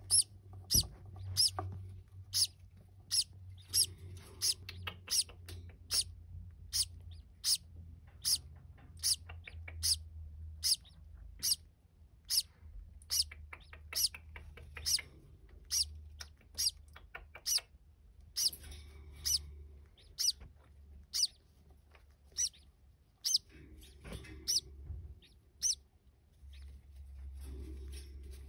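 Green-cheeked conure chicks giving short, high-pitched begging peeps in an even rhythm, about one and a half a second, while being fed by their mother. The peeps stop near the end.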